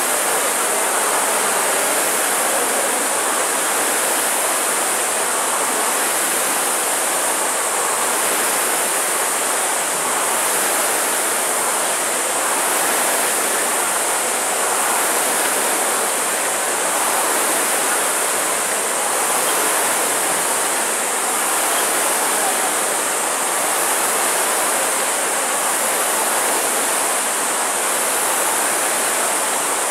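Many rowing ergometers' air-resistance flywheels whirring at once during a race, a steady rushing whoosh that swells slightly about every two seconds with the rowers' strokes.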